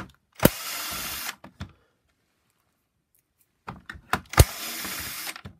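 Cordless drill-driver with a Torx bit running in two short bursts about four seconds apart, each starting with a sharp click, undoing screws in the plastic housing of a vacuum cleaner power nozzle.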